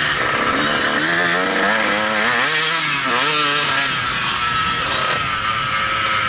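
Dirt bike engine running hard, heard from on board. Its pitch rises and falls several times in the first few seconds as the throttle is worked, then holds steadier.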